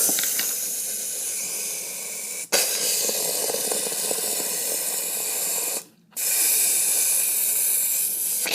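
Small firework spraying sparks with a loud, steady hiss, cut off abruptly twice, briefly about two and a half seconds in and again about six seconds in.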